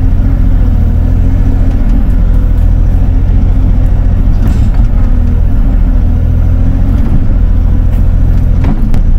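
Bobcat E42 mini excavator's diesel engine running steadily as the boom and bucket work, a loud constant low rumble.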